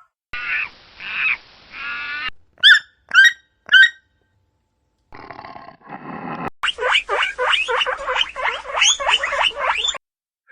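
A run of different animal calls edited together with abrupt cuts: three pitched calls, then three short sharp calls, then a brief pause. After that, a dense chorus of rapidly repeated calls fills the second half.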